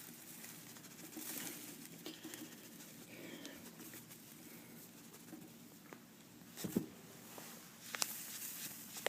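Faint pattering and rustling of gritty volcanic ash being emptied out of a shoe, with a few light knocks, the clearest about two-thirds of the way through and again near the end.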